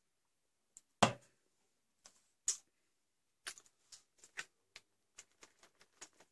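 A drink can set down on a wooden table with a sharp knock about a second in, then the dry crinkling and crackling of a foil freeze-dried meal pouch being handled, in a run of irregular short clicks.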